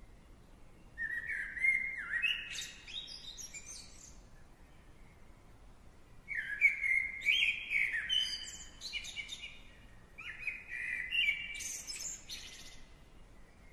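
A songbird singing three phrases of quick chirps and whistles, each a few seconds long, with short pauses between them.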